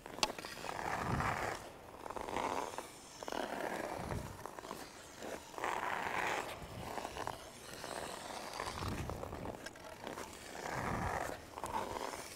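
Hockey skate blades carving and scraping the ice on repeated inside-edge pushes, one swelling scrape every second or two. A sharp click right at the start.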